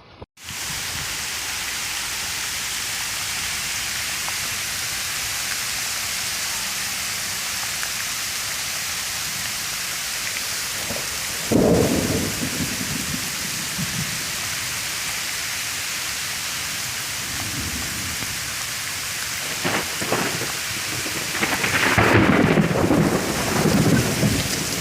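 Heavy rain falling with a steady hiss, broken by two deep rumbling peals of thunder: a sudden one about halfway through that fades over a couple of seconds, and a longer one near the end.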